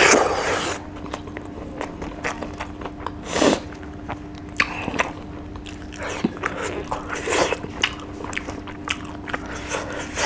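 Close-miked eating of rice with dry fish by hand: loud wet smacking bursts as handfuls go into the mouth, the biggest at the start and about three and a half seconds in, and chewing with many small wet clicks between them.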